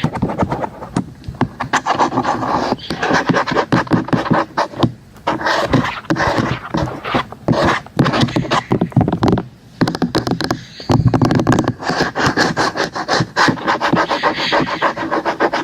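Fingers tapping and scratching on objects close to the microphone, ASMR-style: rapid clicks and scraping in uneven bursts with brief pauses between them.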